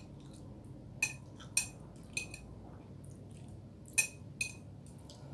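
Cutlery clinking and scraping against a plate in a handful of short, sharp, irregular taps, about five in all, as the last grains of rice are scraped up.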